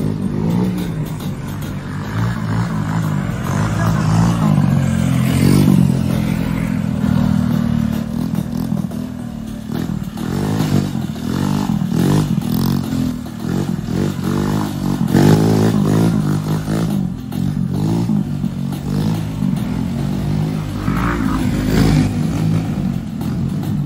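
Small motorbike engine revving hard and being ridden on the throttle, its pitch rising and falling again and again in quick blips.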